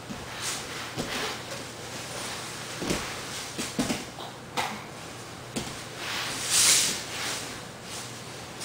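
Bodies and clothing scuffing, rustling and thudding on a foam grappling mat as two men wrestle, with irregular knocks and one louder hissing rush about six and a half seconds in.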